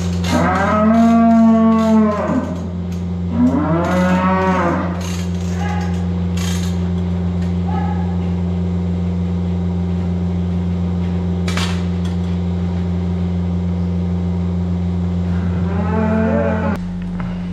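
Holstein dairy cows mooing: two long moos in the first five seconds, each rising and then falling in pitch, and one more near the end. A steady low hum runs underneath.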